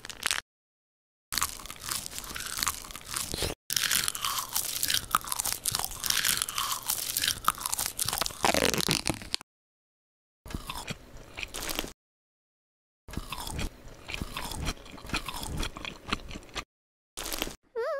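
Crunchy eating sounds, bites and chewing, in short edited snippets cut apart by moments of dead silence, with short falling squeaky tones mixed in.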